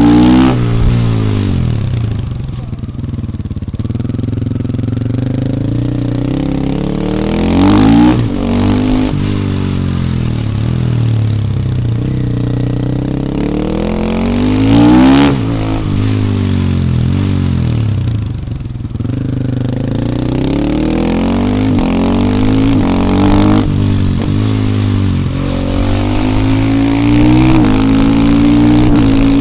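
KTM 450 EXC supermoto's single-cylinder four-stroke engine under way, revving up and easing off again and again. The revs climb sharply to a loud peak about a quarter of the way in and again about halfway, then drop away, with a slow climb through the last third.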